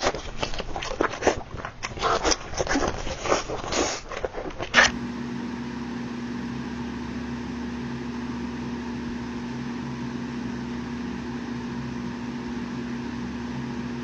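Close-miked mukbang eating: crunchy bites and chewing crackle quickly and unevenly for about five seconds. After that a steady hum with a fixed low tone takes over.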